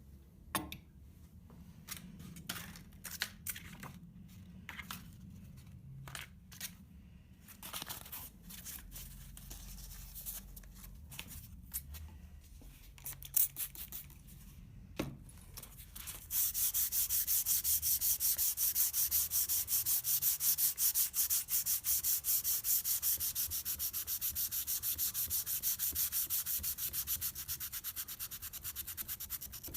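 Hand sanding a small steel knife blade with abrasive paper: scattered clicks and taps as it is set up, then, about halfway through, steady rapid back-and-forth scraping strokes.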